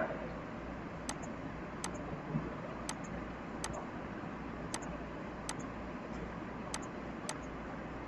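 Faint computer mouse clicks, about eight at irregular intervals of roughly a second, over a low steady hum and hiss.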